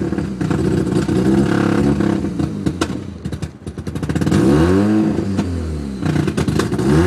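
Mazda RX-7 FC's 13B two-rotor rotary engine running loud and being revved up and down in throttle blips. About halfway through the revs sag and it runs rough with a crackle, then it is blipped up again twice; the owner says it idles lower than it should.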